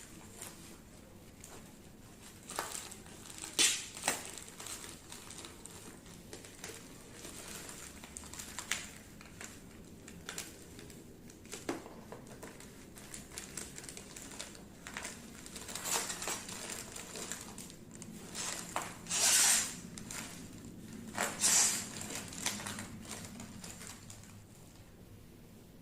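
Handling and unwrapping of a laptop's shipping packaging: scattered knocks, taps and crinkling rustles, with longer scraping rustles about two-thirds of the way in.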